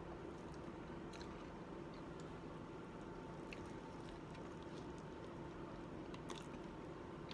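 Faint chewing of a burger: soft, wet mouth clicks every second or so, and a sharper click near the end, over a steady low hum.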